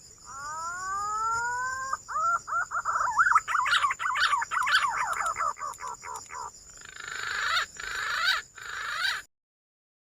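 Green pigeon (punai) calling. It starts with a few rising whistles, breaks into a fast run of warbling notes, then gives several harsher sweeping notes, and stops abruptly about nine seconds in. A faint steady high-pitched tone runs under the call until it stops.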